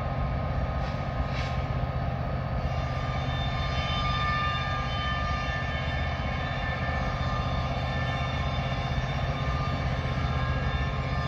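Norfolk Southern diesel locomotive hauling a train of coal hoppers at a crawl: a steady low engine drone with several steady higher tones over it.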